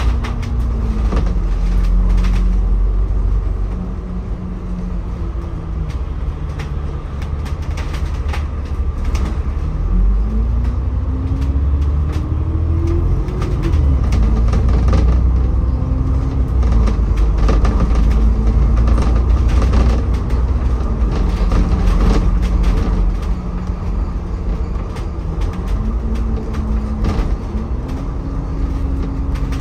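City bus engine and drivetrain heard from on board, over a steady low road rumble. The engine note climbs as the bus pulls away and drops back in steps at the gear changes, several times over. Short rattles and clicks from the bus body come through on top.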